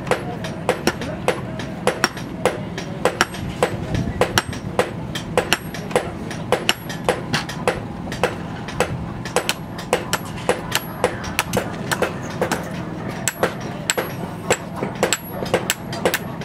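Blacksmith's hammer striking steel on an anvil in a steady run of blows, about two to three a second. Each blow has a short metallic ring, over a steady low background rumble.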